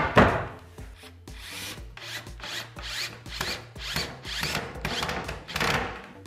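A sharp knock at the start, then a cordless drill run in short trigger pulses, about two a second, the motor spinning up in each one as it drills into the wooden header board.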